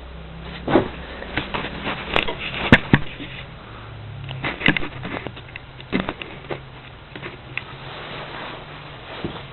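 Volkswagen Polo Sedan's CFNA engine running as a low steady hum, with scattered irregular clicks and knocks over it. This is shortly after a cold start at −5 °C, before the rhythmic engine knock sets in.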